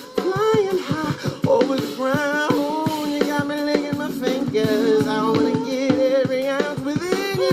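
Funk band music with a steady drum groove, sustained keyboard chords and melodic vocal or instrumental lines with vibrato.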